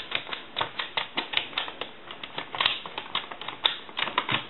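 Push buttons of a Western Electric Princess touch-tone keypad clicking as they are pressed one after another, about four or five clicks a second, with no touch tones among them: the keypad is faulty and never breaks dial tone.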